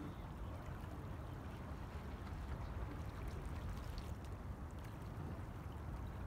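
Calm sea washing gently against the rocks of a breakwater: a steady low wash with a few faint small splashes.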